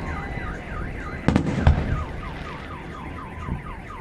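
Fireworks going off, two sharp bangs about a second and a half in, over a car alarm set off by them and sounding a fast repeating warble, about four pitch sweeps a second. About two seconds in, the alarm changes to quick falling chirps.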